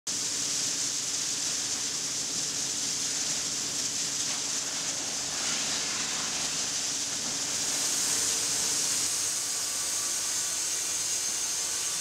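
Steady din of sawmill machinery running in a wood shop: a high hiss over a faint low hum.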